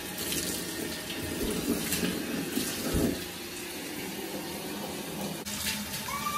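Water running and splashing as a wet Alaskan Malamute's thick coat is rinsed in a bathtub, a steady hiss with small splashes against the tub.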